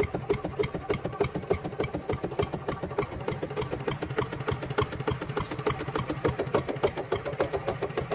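Miniature RC walking tractor's engine sound, chugging steadily at about seven beats a second as it pulls a disc plow through soil.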